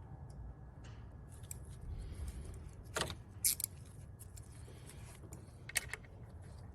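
Scattered light metallic clicks and clinks of a 10 mm socket wrench being fitted and worked on a bolt, over a low steady hum.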